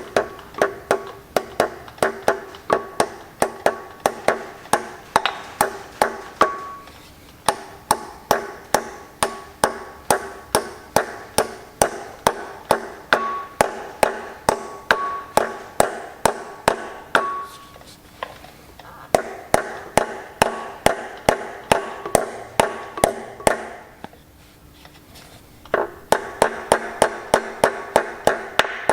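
Steady hammer blows on metal, about two to three a second with a ringing tone after each, tapping a pilot (spigot) bearing home into the centre of a Massey Ferguson 135's flywheel; the strikes stop briefly a few times.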